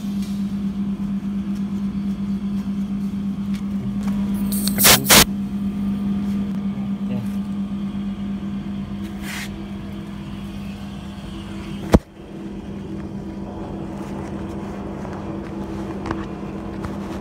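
R410A refrigerant gas hissing out in two short, loud spurts about five seconds in as the charging hose valve is pressed, with a fainter hiss a few seconds later and a sharp click near the end. A steady low machine hum runs underneath.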